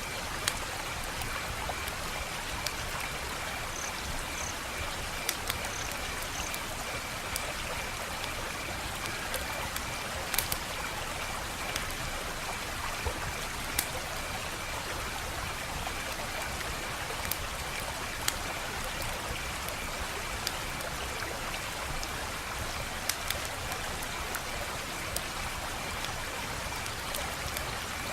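Wood fire crackling: a steady hiss with irregular sharp pops and snaps scattered throughout.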